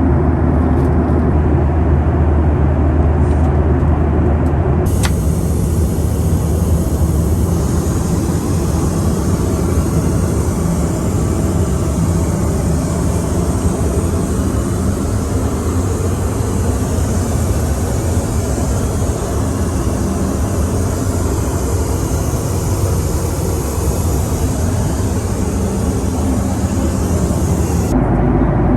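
Steady in-flight cabin noise of a Boeing 737-800: the roar of its CFM56 engines and the rush of air past the fuselage. About five seconds in, the sound turns abruptly brighter and more hissy, and it switches back just before the end.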